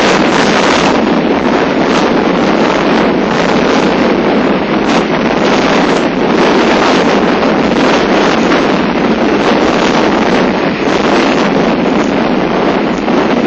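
Typhoon-force wind blasting across the microphone: loud, continuous rushing noise that surges in gusts.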